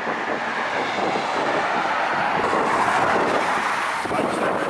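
Road traffic on a wide city street: a steady rush of passing vehicles, swelling slightly towards the middle.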